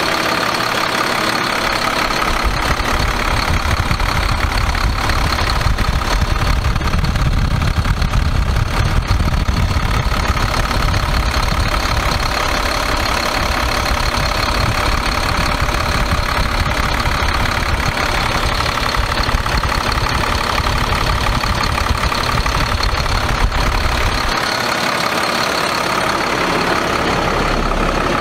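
Caterpillar C7 inline-six diesel engine idling steadily, heard up close at the engine bay. A deep low rumble drops away near the end.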